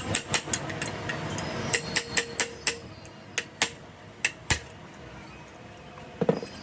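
Metal tapping on metal: a dozen or so sharp, irregular taps and clinks in quick runs, some leaving a brief ring, thinning out after about four and a half seconds, with a duller knock near the end.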